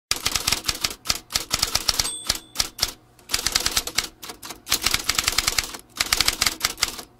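Typewriter sound effect: keys clacking in fast runs as the caption types out, pausing briefly near three and six seconds in, with a short bell ding about two seconds in.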